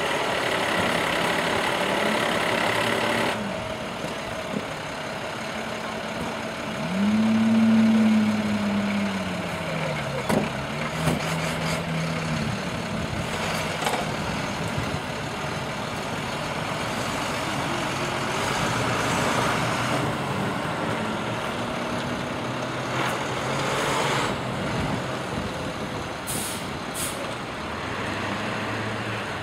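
Hi-rail truck's engine running as the truck gets onto the rails and moves off along the track, revving up and back down once partway through, the loudest part. A hiss cuts off abruptly a few seconds in, and there are a few scattered knocks.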